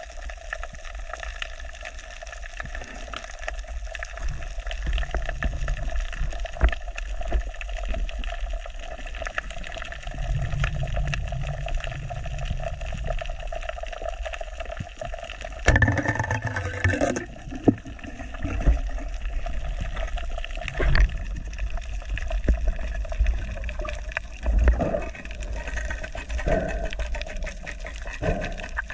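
Underwater sound heard through a camera's waterproof housing on a dive: a steady low rumble and water noise, with louder rushing bursts, the strongest about halfway through.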